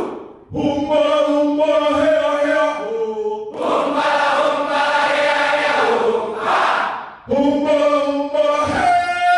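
A large crowd singing together in unison, in long held phrases with brief breaks about half a second in and about seven seconds in.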